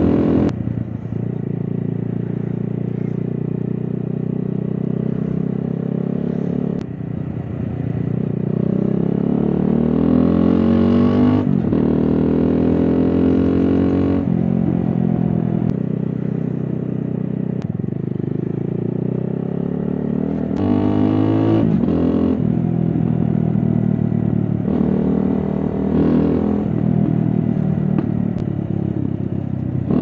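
Keeway Cafe Racer 152's single-cylinder engine heard through an Akrapovic full exhaust system with the dB killer fitted, on the move. The pitch climbs as the bike accelerates and drops sharply at each gear change, several times over, with steadier cruising in between.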